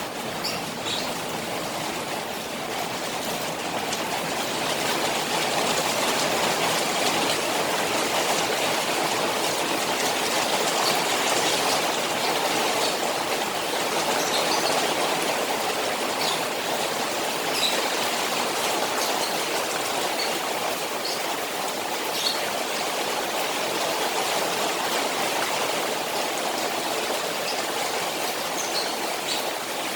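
Rain falling on a koi pond: a steady rush of water with scattered small drips.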